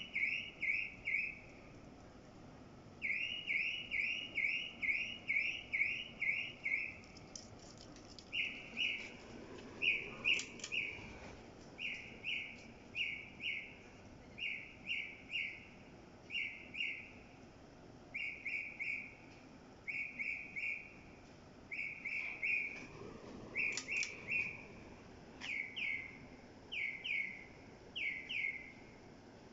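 A bird calling over and over: short downward-sliding chirps, first in quick runs of several, then spaced out to about one a second.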